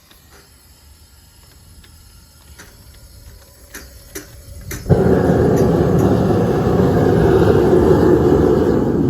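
Small copper-melting foundry furnace: a few sharp clicks, then about five seconds in a steady, loud rushing noise starts abruptly as the furnace is fired up to warm.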